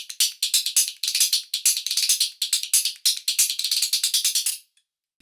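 Homemade modern khartals, the clappers of a Rajasthani percussion instrument reworked for lap playing, struck in quick rhythmic phrases of bright, jingly clicks. The playing stops near the end.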